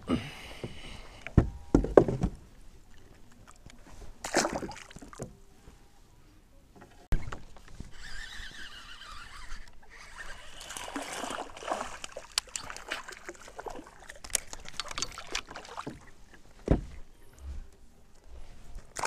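Water splashing and sloshing around a kayak, with scattered knocks and thumps against the boat, while a hooked largemouth bass fights at the side; the sharpest thumps come about two seconds in.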